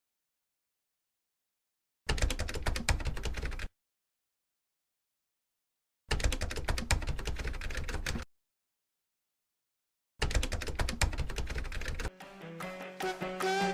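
Three bursts of rapid typing clicks, each lasting about two seconds, with dead silence between them. Background music with a steady melody comes in near the end.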